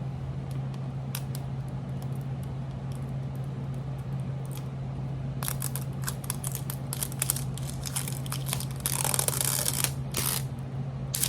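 Plastic wrapping of a blind-box capsule ball being unwrapped and torn open: a few scattered clicks, then from about halfway dense crinkling and crackling, with a longer tearing rustle near the end. A steady low hum runs underneath.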